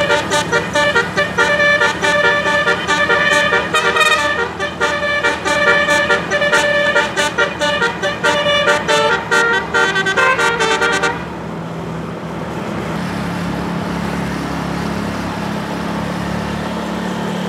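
A bus's multi-tone telolet horn plays a fast melody of quick, changing notes. It cuts off abruptly about eleven seconds in, leaving steady vehicle engine and road noise.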